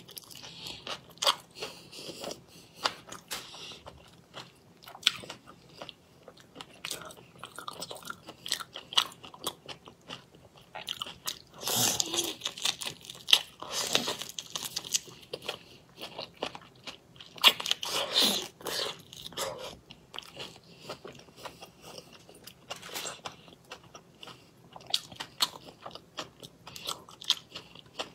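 Close-miked biting and chewing of whole raw marinated shrimp in their shells: irregular crunches and crackles of shell with wet mouth sounds, and louder spells of crunching about twelve and eighteen seconds in.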